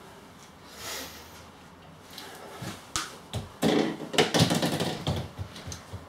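Footsteps in Crocs on a laminate floor, with a burst of clattering and knocking about three and a half seconds in as a small plastic bottle is knocked over and rolls across the floor.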